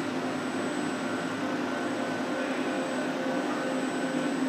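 CNC machining centre running in a machine shop: a steady mechanical hum with a thin, constant high whine over it.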